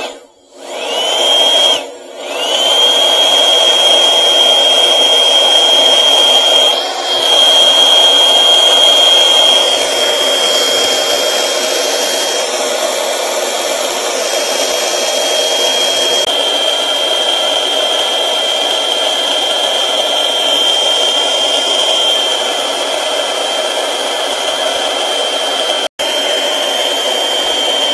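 Cordless electric blower running flat out with a steady high whine over a rush of air. It spins up about a second in, cuts out briefly and spins up again. Its nozzle is pressed into a machine's oil fill port to blow the old oil out through a drain tube.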